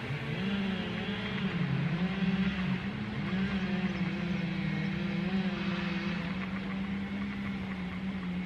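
Highway traffic: a steady drone of passing vehicles, with engine notes drifting up and down in pitch.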